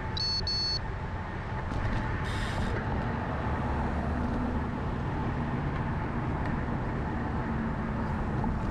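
Steady wind and road rumble picked up by a bicycle-mounted camera while riding on a city street past traffic. Two short high beeps right at the start.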